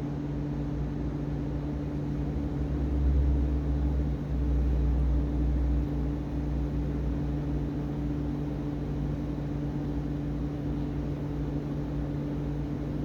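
Steady low machine hum, with a deeper rumble swelling for a few seconds about three seconds in.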